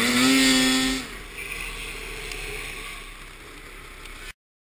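Snowmobile engine held at high revs, then backed off about a second in to a quieter run. The sound cuts off abruptly near the end.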